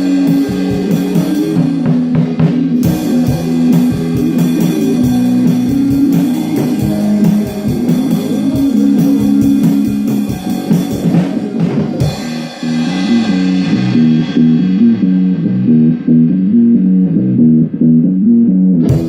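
Indie rock song with electric guitars and bass, and a drum kit played along to it. The drums drive hard for about the first twelve seconds, then stop, leaving the guitars and bass playing a repeating figure on their own.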